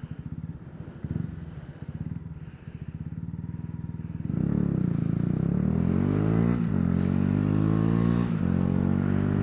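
Motorcycle engine ticking over at low revs, heard through a microphone on the rider's helmet. About four seconds in it pulls away and gets louder, its pitch climbing, with two short breaks for gear changes.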